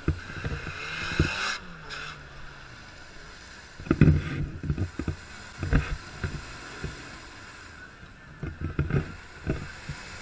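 Land Rover Defender's engine working under load as it wades through a deep mud pool, with thick mud and water sloshing around the wheels and body. The engine note rises about a second in, and irregular low thumps run throughout.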